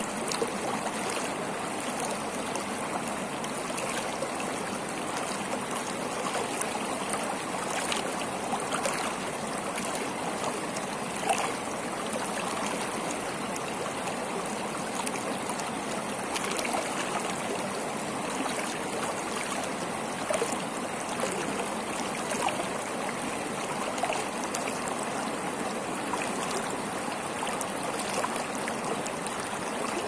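Shallow mountain river flowing fast over rocks in a steady rush of water, with a few brief louder splashes now and then.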